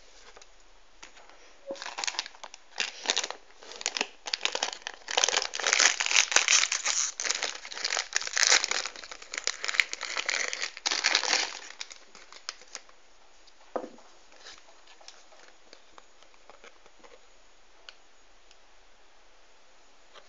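A plastic-foil blind bag crinkling loudly as it is handled and torn open, for about ten seconds; after that only faint rustling and one soft knock.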